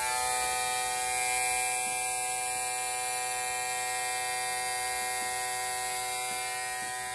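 Autool CT-150 fuel injector tester running its high-speed spray volume test: two Datsun 280ZX fuel injectors pulsing rapidly, making a steady high-pitched buzz, with a hiss of test fluid spraying into the measuring cylinders.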